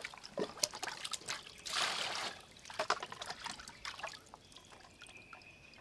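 Water splashing and trickling in a stainless steel bowl as hands wash raw octopus, with scattered small clicks and splashes. A faint steady high tone comes in near the end.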